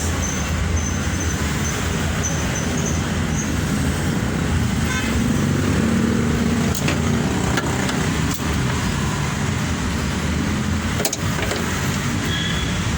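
Steady motor-vehicle noise from highway traffic, with a low hum and a few faint clicks in the second half.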